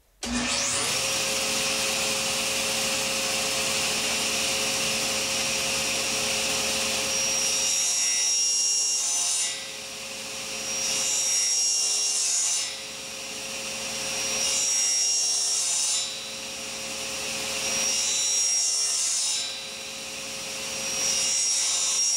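Table saw starting up and running, then plunge-cutting notches into a wooden gear blank held in an indexing jig. Five cuts of about two seconds each stand out louder and brighter over the steady running of the saw, with short dips between them.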